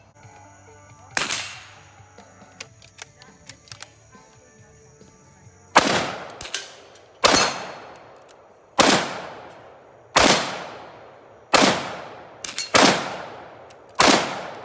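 Eight gunshots from a firearm in slow, aimed fire. One shot comes about a second in, then after a pause seven more follow at a steady pace about a second and a half apart, each trailing off in a short echo.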